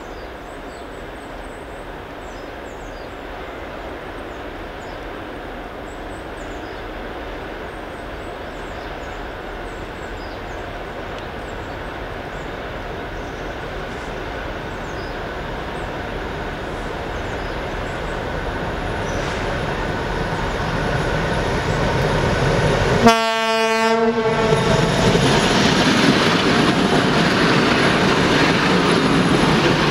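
2M62 two-section diesel locomotive hauling a work train, approaching with a rumble that grows steadily louder. Near the end it sounds one short horn blast of about a second, then the loud rush and rolling of wheels as the locomotive and its cars pass close by.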